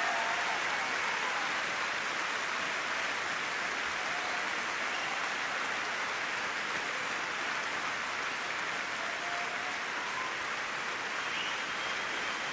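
Large arena audience applauding: dense, steady clapping, with a few faint calls heard above it.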